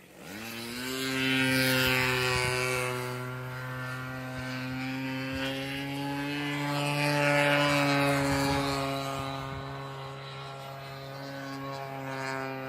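Propeller-driven RC model airplane's gas engine in flight, one steady buzzing engine note. The pitch rises as it comes in at the start, and the sound grows louder twice, about two and seven seconds in.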